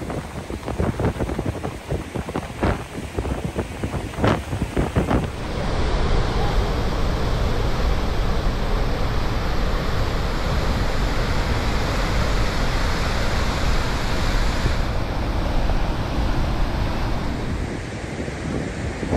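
Roar of a large waterfall and its rapids: a dense, steady rush of water. Wind buffets the microphone in gusts during the first five seconds or so.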